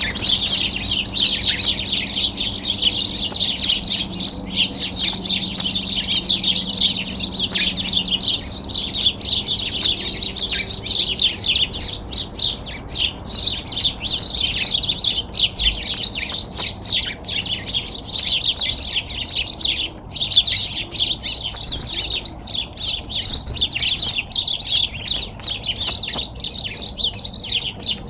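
Many small birds chirping and twittering at once in a dense, unbroken chorus of high, quick calls.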